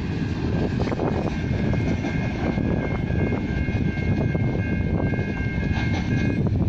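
Broad gauge freight train rumbling steadily as it moves away down the line, with a steady high whine in two pitches that stops near the end.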